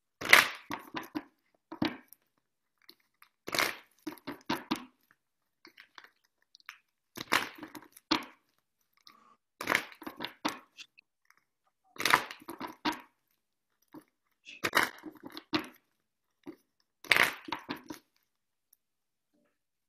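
A deck of oracle cards being shuffled by hand, heard over a video call: seven short bursts of rapid crackling about every two and a half seconds, stopping shortly before the end.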